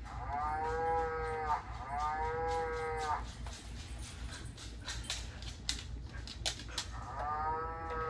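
Electronic baby toy's speaker playing a recorded cow mooing: two moos in the first three seconds and a third beginning near the end, with a few sharp clicks in between.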